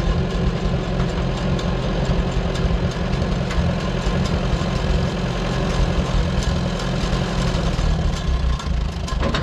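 Small vintage farm tractor engine idling steadily.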